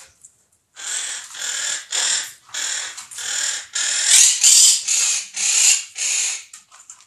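Parrots squawking loudly over and over, about ten short calls in quick succession, loudest in the middle of the run.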